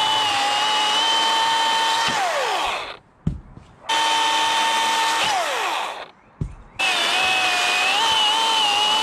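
Milwaukee M18 FUEL top-handle battery chainsaw with a brushless motor running at full speed with a steady high whine, its pitch dipping slightly as the chain bites into the wood. Twice the trigger is released and the motor winds down, with a knock in each short pause, before it revs straight back up.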